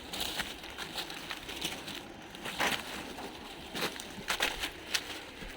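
Footsteps crunching and rustling through dry fallen leaves on a forest trail, in a string of irregular crunches.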